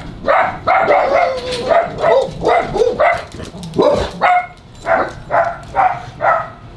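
A dog barking over and over, about two loud barks a second.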